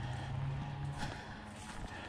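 Footsteps of people walking on a hard path, irregular steps over a low steady hum.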